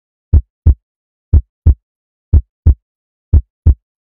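Heartbeat sound effect: a low double thump (lub-dub) once a second, four times, with silence between the beats.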